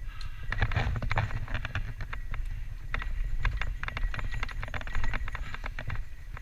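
Santa Cruz Tallboy LTC mountain bike rattling and clattering over rough dirt singletrack on a fast descent: an irregular run of sharp clicks and knocks from the bike over rocks and roots, over a steady low rumble of wind and tyre noise on the camera microphone.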